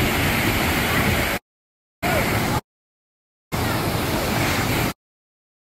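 Steady rush of a waterfall pouring into a pool. The sound cuts out abruptly to dead silence three times, for about half a second to a second each.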